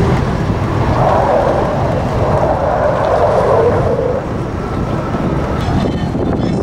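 Distant roar of the Blue Angels' F/A-18 Hornet jets flying past in a four-ship formation, a rushing rumble that swells about a second in and eases off after about four seconds, with wind buffeting the microphone.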